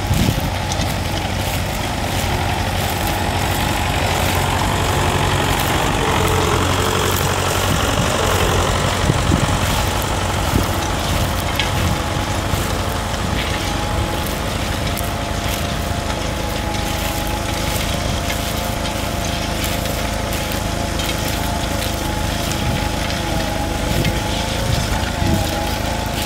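1938 Fordson N tractor's four-cylinder side-valve engine running steadily under load, pulling a trailed plough through the soil.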